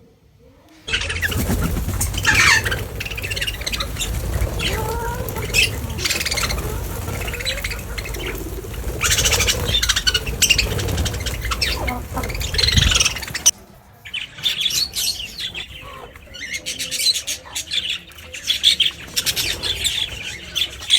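Many birds calling at once, squawks and chirps overlapping over a low steady rumble. About 13 seconds in there is an abrupt change: the rumble stops and the bird chatter carries on.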